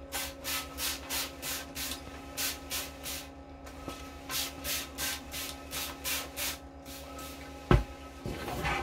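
A wet cloth rubbed back and forth over a vinyl sticker to wet it with soapy water, in quick strokes about three a second with two short pauses. One sharp knock near the end.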